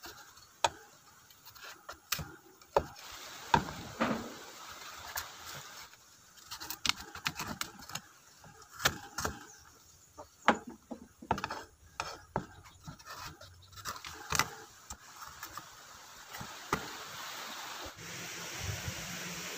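A knife cutting and prying fresh coconut flesh away from the shell in small pieces. It makes a run of irregular scrapes and sharp clicks as the blade works through the hard flesh and knocks against the wooden board.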